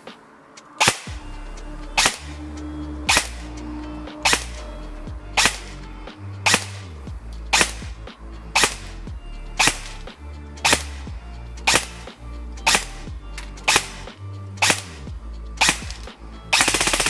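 Airsoft electric gun (Evolution Airsoft Reaper XS AEG, V2 gearbox, E120 spring) firing single semi-auto shots about once a second into a chronograph for a velocity test at about 340 fps. Near the end it switches to a short full-auto burst.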